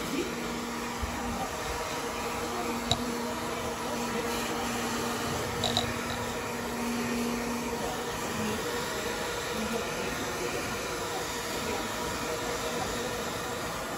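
Handheld hair dryer running steadily, a continuous even whir with a low hum; a lower tone in the hum drops out about halfway through.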